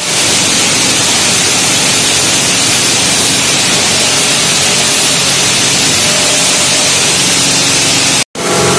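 7 MW steam turbine and its reduction gearbox running: a loud steady hiss with a faint hum underneath, the noise of a set running with abnormally high vibration. It cuts out briefly near the end and comes back with a clearer hum.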